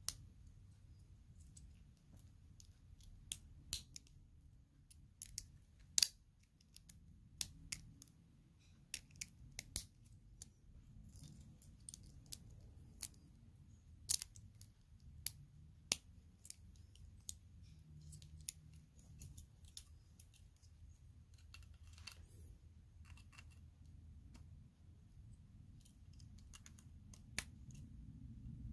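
Plastic Lego bricks clicking and snapping together as pieces are handled and pressed on by hand: scattered sharp clicks at irregular intervals, over a low steady hum.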